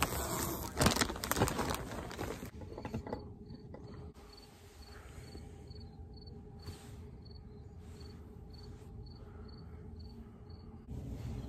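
Rustling and knocking of handling noise for the first couple of seconds, then a cricket chirping in short, evenly spaced high chirps, about two a second, over a faint steady hum.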